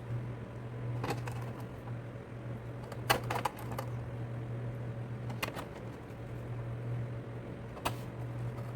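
Screws being driven into the metal cover of a computer power supply: a handful of sharp clicks a second or more apart, over a steady low hum.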